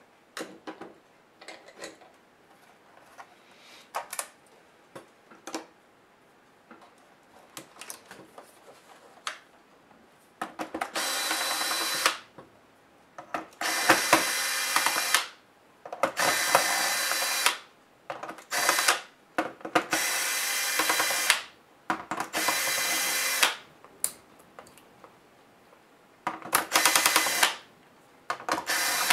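Light clicks and knocks of parts and tools being handled, then a cordless electric screwdriver whirring in about seven short bursts of a second or so each, backing out the screws of a laptop's plastic bottom case.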